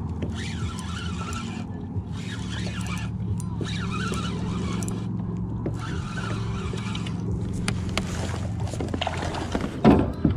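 A steady low motor hum, with several bursts of higher hiss that start and stop abruptly, and a sharp knock near the end.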